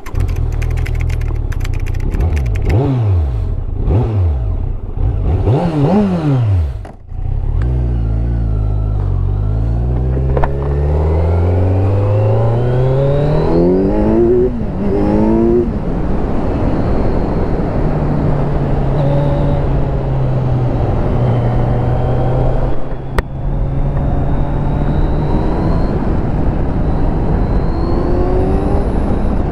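Kawasaki Z900's inline-four engine on its stock exhaust: a few quick revs up and down, then accelerating through several gears with the pitch climbing and dropping at each shift, then running at a steady speed with small rises. A sharp tick about two-thirds through.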